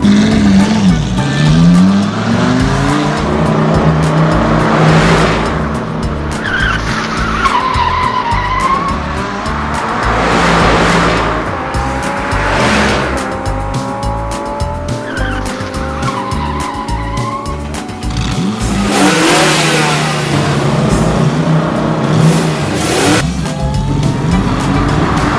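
Car-chase sound effects: engines revving with rising and falling pitch, tyres skidding and cars whooshing past several times, over background music.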